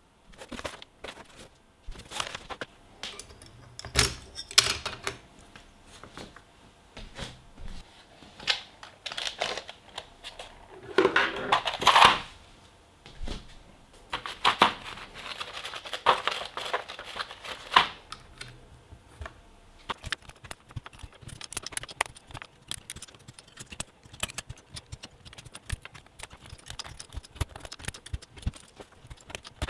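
Typing on a custom Next Time 75 mechanical keyboard with lubed Cherry MX Brown switches, PBT XDA keycaps and a foamed, tape-modded case, giving a thocky clack to each keystroke. Keystrokes come scattered at first, bunch into a loud dense flurry a little before the middle, and turn into fast, continuous typing in the last third.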